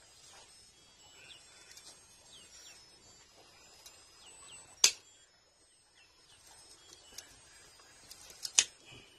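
Old copper windings being worked out of a swimming pool pump motor's stator by hand with a tool: a sharp click about halfway through and two more near the end. Birds chirp quietly in the background.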